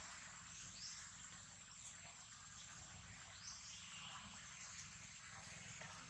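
Near silence: faint outdoor background hiss with a steady high-pitched whine and a few faint short chirps.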